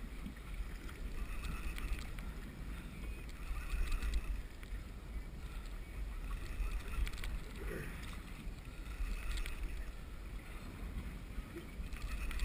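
Wind noise on the microphone over water lapping and splashing against the hull of a small boat on a choppy sea.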